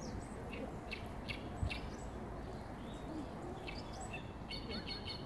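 Small songbirds chirping in short, high notes, with a quick run of repeated notes near the end, over a steady low background hiss.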